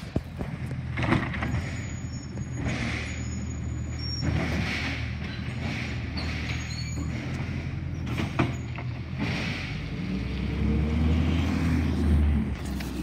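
Garbage truck engine running steadily, with a few short knocks and brief hisses. About ten seconds in, the engine grows louder and deeper.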